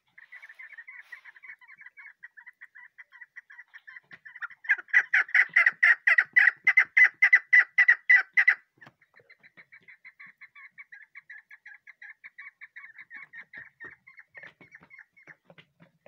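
Chukar partridge calling: a fast run of short, repeated chattering notes. The notes grow much louder about four and a half seconds in, for some four seconds, then carry on softer.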